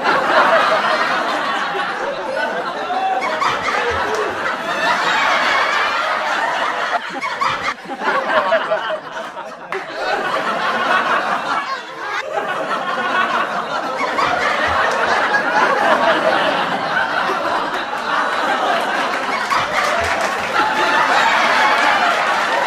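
Many people laughing and chattering together, continuously, with brief lulls about a third and about halfway through.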